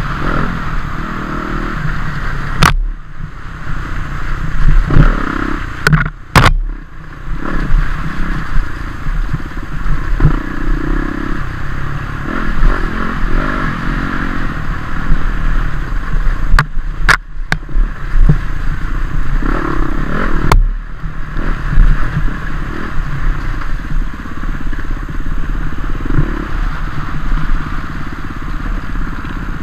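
Dirt bike engine running and revving up and down while being ridden over rough trail, with clattering and scraping from the bike and several sharp knocks.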